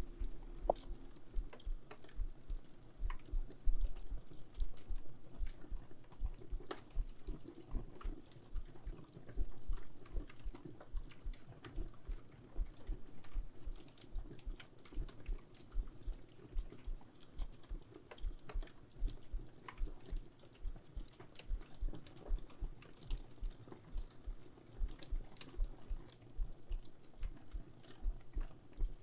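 A slow, steady heartbeat, deep thumps a little under a second apart, over a fireplace crackling with small scattered pops.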